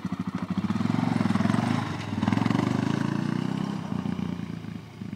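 Honda sport ATV engine revving up and down as the quad pulls away, its sound fading near the end as it rides off.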